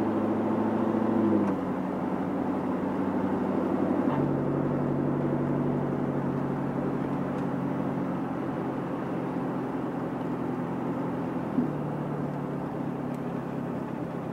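Chevrolet C7 Corvette Stingray's 6.2-litre V8 running at low revs while the car cruises slowly, heard from inside the cabin over tyre and road noise. The engine note steps in pitch a few times.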